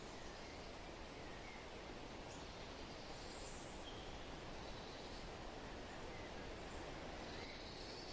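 Steady wind blowing, with a few faint, short, high bird chirps here and there.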